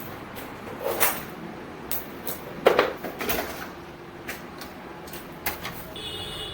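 Scattered clicks and knocks of hard parts being handled, with the loudest knock a little before the middle, on an air conditioner being opened up for servicing. A faint high steady sound starts near the end.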